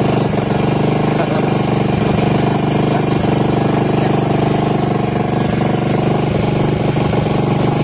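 Small engine running steadily close by, a rapid, even chugging that holds at one speed throughout.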